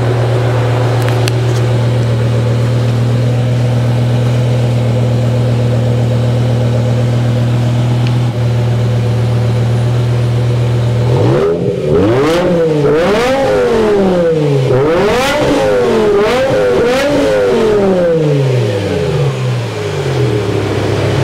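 BMW E60 M5's S85 V10 engine idling steadily, heard from behind at its quad exhausts. About eleven seconds in it is revved several times in quick succession, up to about 6,500 rpm, then settles back to idle near the end.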